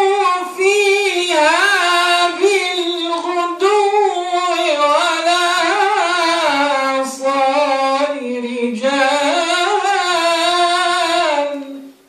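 A man's voice chanting Quranic recitation in the Warsh reading: long, held melodic phrases with ornamented turns of pitch and short breaths between them, ending just before the close.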